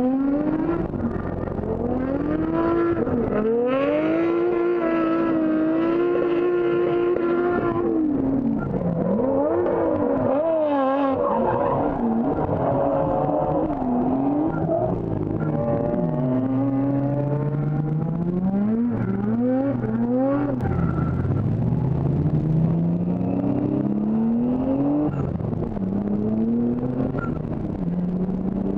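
Drift car engine revving hard, its pitch climbing and dropping again and again over tyre noise. The owner says the car was misfiring all over the place during this event.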